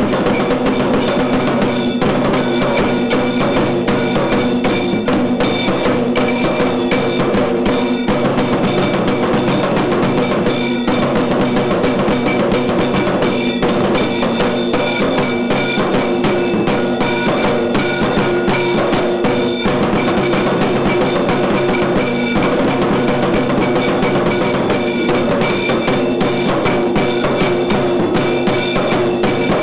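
Kailaya vadyam, a Tamil Shaiva temple ensemble of drums and horns, playing: dense, steady drumming over long held horn tones.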